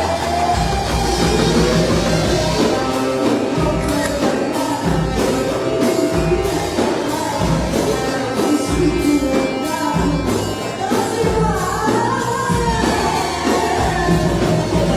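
Arabic popular song performed live: a woman singing over band accompaniment with a steady percussion beat.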